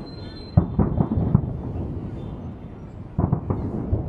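Aerial firework shells bursting: a quick run of booms starts about half a second in, and another cluster of booms comes just after three seconds.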